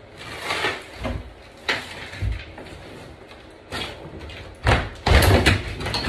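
A shower wall panel being pried and pulled off the wall framing: a series of scrapes, creaks and knocks, loudest as the panel breaks free near the end.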